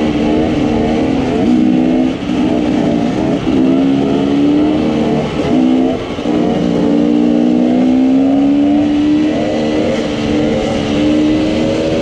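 Enduro dirt bike engines running at mid revs, the pitch holding and slowly climbing, broken by a few brief throttle cuts, with wind noise on the microphone.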